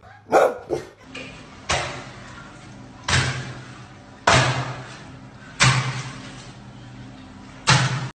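A dog gives two short vocal barks, then five sharp bangs, each with a short fading tail, come one to two seconds apart over a low steady hum.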